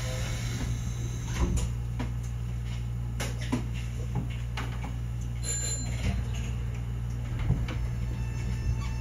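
Steady low hum inside a Nankai 8300 series electric train, with irregular light clicks and knocks.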